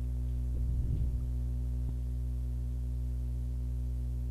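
Steady electrical hum, a low buzz made of many evenly spaced tones that holds level throughout, with a faint click about two seconds in.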